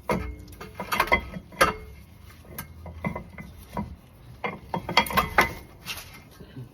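Irregular metal clanks and clicks as a brake caliper bracket and its bolts are handled and fitted against the steering knuckle, with a cluster of sharper knocks near the end.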